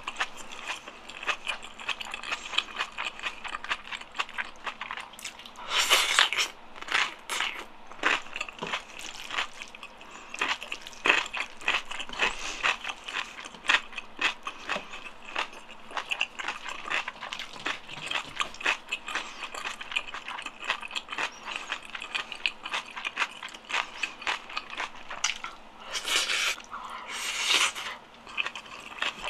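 Close-miked eating sounds: chewing and wet mouth clicks from mouthfuls of black-bean-sauce ganjjajang mixed with rice, in quick succession, with a few louder, longer rushes of sound about six seconds in and near the end.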